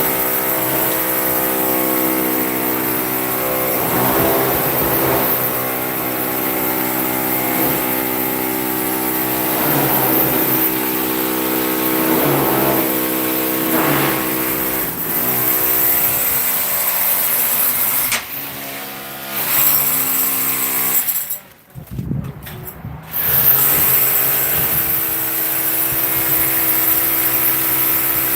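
A machine's motor running steadily with an even hum. The sound dips briefly about two-thirds of the way through and cuts out for a moment soon after.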